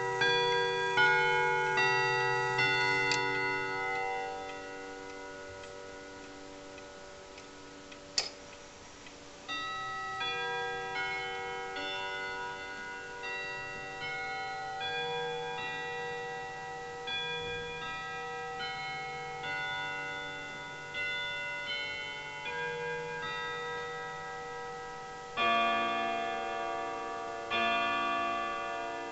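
Jauch wall clock striking a chime melody on its steel chime rods: overlapping ringing notes that die away, with a quieter gap in the middle. About three seconds from the end, louder, deeper strikes begin, roughly every two seconds, counting the hour.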